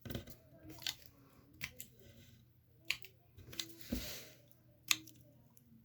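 Homemade fidget toy (a bottle cap packed with play dough under a stretched, taped piece of balloon) being squeezed and pressed by hand. It makes a handful of separate sharp clicks, with a short rubbing hiss about four seconds in.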